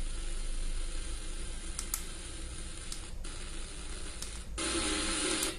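The FM radio of an AMOI G5 Bluetooth speaker alarm clock stepping through its preset channels, giving steady static hiss broken by a few short clicks as it changes channel. The hiss swells louder for about a second near the end.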